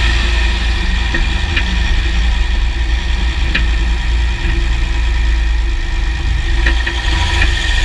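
Underside of a 2009 Jeep Grand Cherokee WK with the 3.0 CRD V6 diesel, heard from the skid plate: a steady engine and drivetrain drone with about five sharp clicks scattered through it. The clicks come from a drivetrain that also clunks when loaded and unloaded, cause not yet found.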